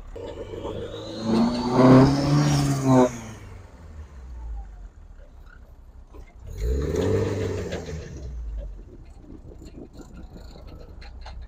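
Nissan 240SX's rebuilt SR20DET turbo four-cylinder accelerating hard twice, the first pull louder, with a high whine rising above the engine note. The freshly rebuilt engine is still on an early tune, its fuel trim not yet dialed in.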